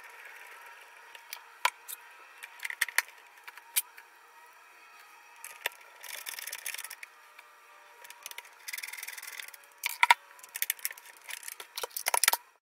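Hands handling the plastic base housing of a Zojirushi water boiler: scattered clicks and knocks, scraping about 6 s and 9 s in, and a dense run of clicks and rattles near the end that cuts off suddenly.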